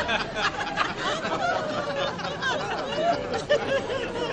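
Laughter and chuckling voices, with short clicks among them.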